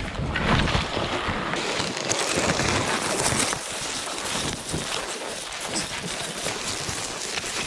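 Skis sliding and scraping through soft snow on a steep tree run, with scattered scrapes and brushes and wind rushing over the microphone. It is loudest for the first three seconds or so, then eases to a steadier hiss.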